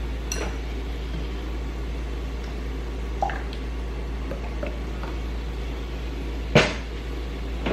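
Kitchen sounds under a steady low hum: scattered light clicks and taps of utensils and containers, with one sharp knock about six and a half seconds in.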